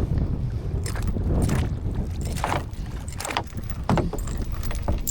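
Kayak paddle strokes splashing in the water, about six in a row, over a steady low rumble of wind on the microphone.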